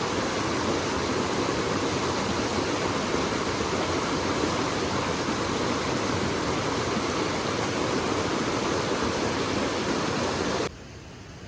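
Small mountain stream's water rushing steadily, heard close up; it cuts off sharply near the end.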